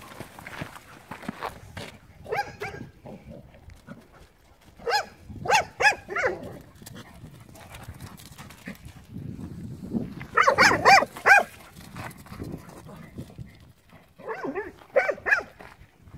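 A dog barking and yelping in excited bursts during a chase, in four groups of short, high calls. The loudest group comes about ten seconds in.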